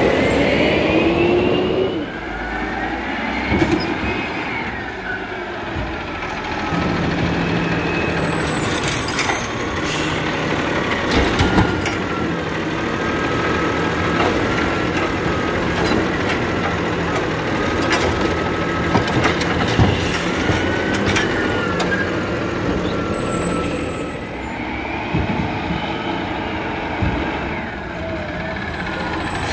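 Peterbilt garbage truck's diesel engine running under load while the Wayne Curbtender's hydraulic side-loader arm grabs, lifts and dumps a curbside cart, a whine rising and falling as the engine revs, with metal-and-plastic clanks around the middle as the cart is shaken out; near the end the truck pulls away.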